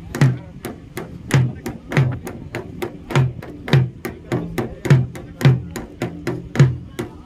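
A drum beating a steady rhythm: heavy, deep strokes a little under two a second, with lighter strokes between them.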